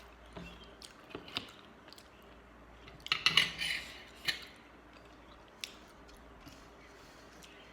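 Eating sounds: wet chewing and squishing of watery fermented rice, with scattered clicks. A short, louder burst of clicking and scraping comes about three seconds in.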